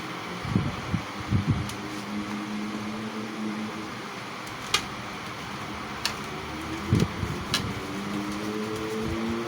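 A steady mechanical hum with a few sharp clicks and low knocks; near the end a second tone slowly rises in pitch.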